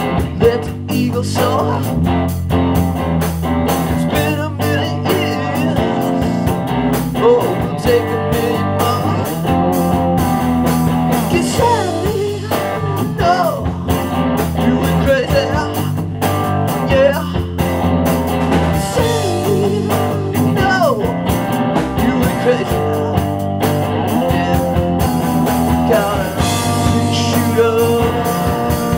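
Rock band playing loudly, with electric guitar, electric bass and a drum kit.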